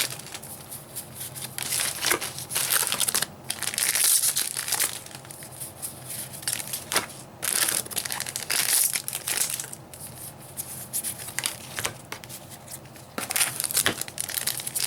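Plastic booster pack wrappers crinkling and tearing as packs are ripped open one after another. The crackle comes in irregular bursts, with several louder rips.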